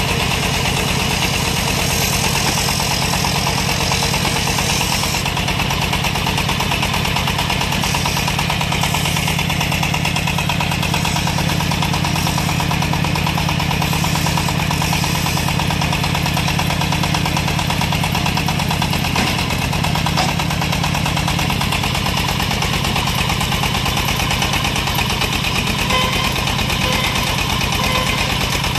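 Engine of a small portable hydraulic water well drilling rig running at a steady speed.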